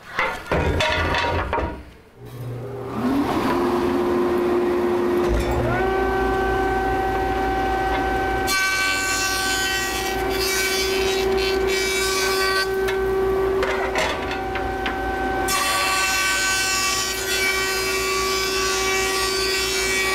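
Jointer motor starting about three seconds in, its whine rising to a steady pitch. From about eight seconds in the spinning cutterhead planes the edge of a quarter-sawn white oak board fed along the fence, a loud hiss of cutting over the whine that breaks off briefly near fifteen seconds and then resumes.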